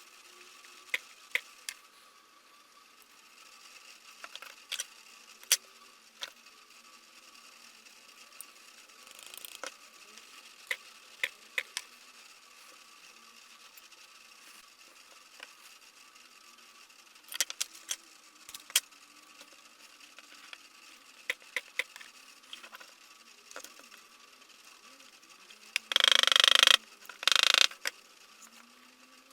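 Scattered sharp clicks and taps of small tools and parts being handled at a workbench. Near the end come two loud bursts of hissing noise, each lasting about a second.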